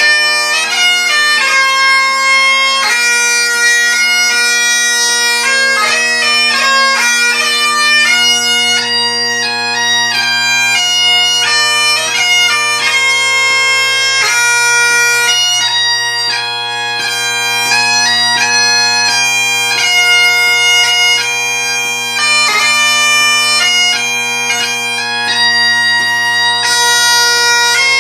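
Great Highland bagpipe played solo: the drones sound one steady chord under the chanter's melody, with quick grace notes cutting between the held melody notes.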